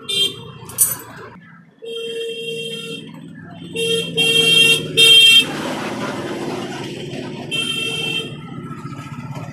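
A vehicle horn honking about six times, some blasts short and some held for about a second, over a steady low rumble.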